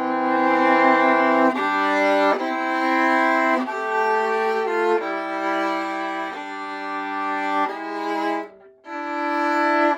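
An old German full-size viola bowed in slow, sustained notes, often two strings at once, the notes changing about once a second with a brief break near the end.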